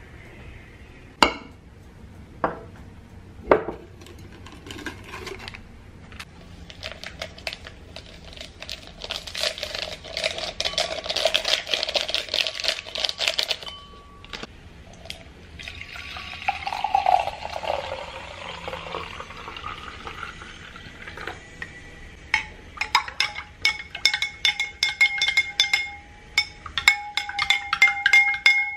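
Glassware clinking a few times, then liquid pouring into a drinking glass. In the last third a metal spoon stirs inside the glass, tapping its sides rapidly so that the glass rings.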